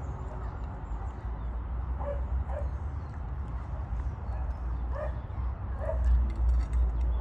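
Short animal yips or whimpers, a few of them in pairs, over a steady low rumble.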